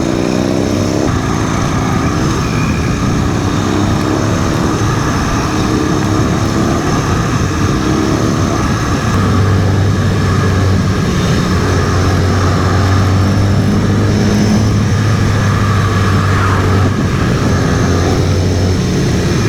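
Harley-Davidson Sportster's V-twin engine running on the move. Its pitch climbs several times in the first few seconds, then holds steady at a constant speed.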